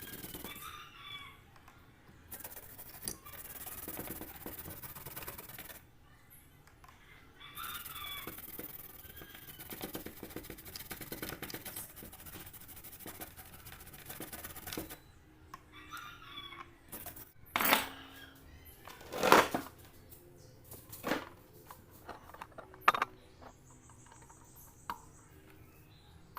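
Bird calls, likely chickens, sound several times in the background, each about a second long. From the middle on come a handful of sharp knocks and clatters, the loudest about two-thirds of the way through.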